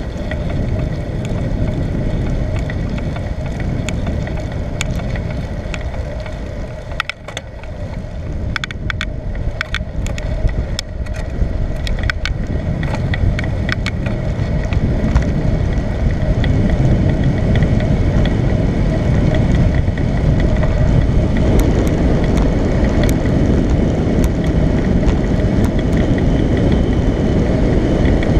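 Steady rushing rumble of a moving bicycle ride, with wind on the microphone and tyre and road noise. A cluster of sharp clicks and rattles comes through the middle.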